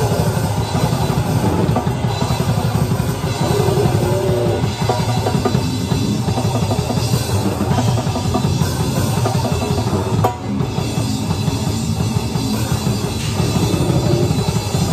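Live band playing loud rock music, with a close-miked drum kit and its cymbals being struck throughout.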